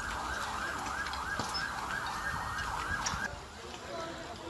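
Emergency vehicle siren in a fast yelp, rising and falling about three times a second, cutting off suddenly about three seconds in.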